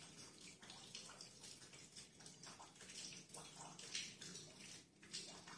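Faint scratching of chalk rubbed onto the edge of a steel motorcycle crankshaft flywheel to mark it, with soft irregular scrapes.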